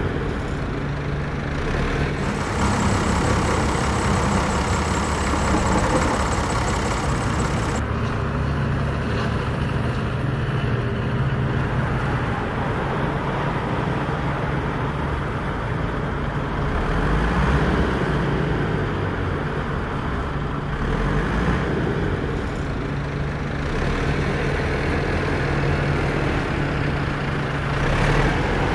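An engine running steadily with a low, even drone, its tone shifting a couple of times.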